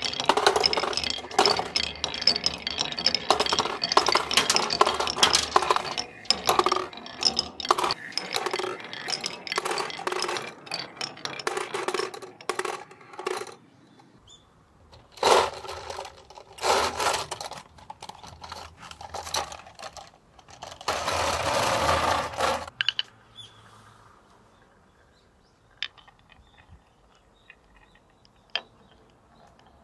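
Glass marbles rolling and clattering along wooden marble-run tracks: dense, rapid clicking and clacking for the first dozen seconds, then several separate bursts of rattling, and in the last stretch only a few faint ticks.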